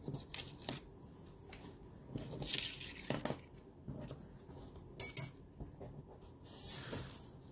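Light scattered clicks and taps of a thin metal cutting die and cardstock being handled on a craft mat, with a soft paper rustle about two and a half seconds in and again near the end, as die-cut pieces are freed from the die.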